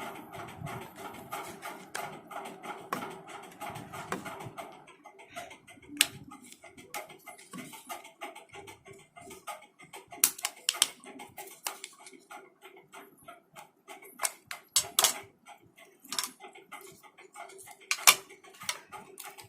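Irregular sharp plastic clicks and snaps as the housing of a Samsung B310E feature phone is prised open, with a few louder snaps in the second half.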